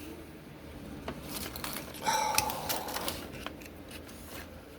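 Small parts being handled and shifted on a workbench: a run of light clicks and taps, with a louder clatter about two seconds in.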